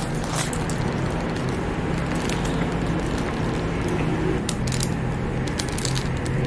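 Steady low mechanical hum with many scattered clicks and light clatter on top.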